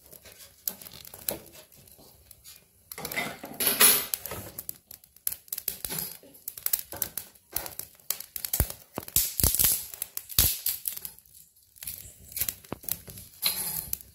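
Small fire of dry split wood and a burning plastic snack wrapper crackling and popping irregularly, with knocks and thuds as sticks of wood are laid onto it in the metal tray.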